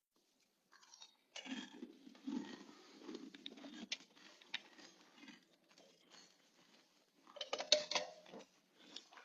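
A person chewing a crunchy snack close to the microphone: irregular crunching, with a louder burst about seven and a half seconds in.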